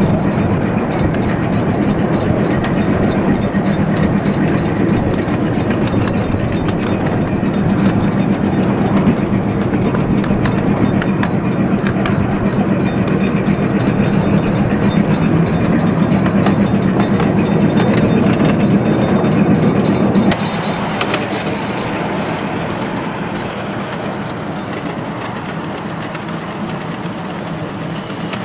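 Ride-on miniature railway locomotive running along small-gauge track, heard from on board: a steady low drone with rattling wheel-on-rail noise. The sound drops suddenly about twenty seconds in and stays quieter after.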